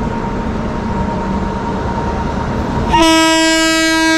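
An approaching train's steady rumble on the adjacent track, then about three seconds in the WAP-7 electric locomotive sounds its horn in one loud, steady blast.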